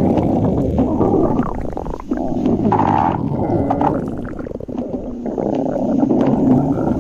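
Stomach growling: a continuous gurgling rumble with wavering, squeaky glides in pitch, easing off a little past the middle before building again.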